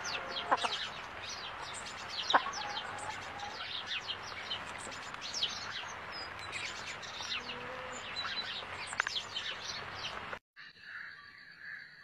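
Many small birds chirping, with short, quick, downward-sweeping notes overlapping busily over a steady hiss. This cuts off abruptly about ten seconds in and is replaced by a fainter, steady high-pitched tone.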